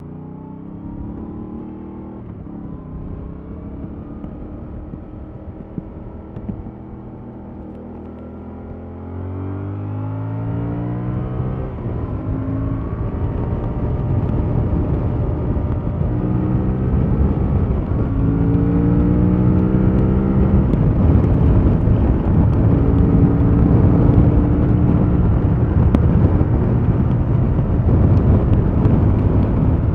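2021 Yamaha MT-07's parallel-twin engine with stock exhaust, idling steadily, then pulling away about nine seconds in and accelerating up through several gears, its pitch climbing and dropping back at each shift as it gets louder.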